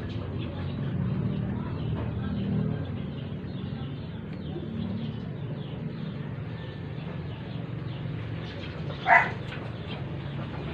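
A dog barks once, short and loud, about nine seconds in, over a steady low background din with faint scattered ticks.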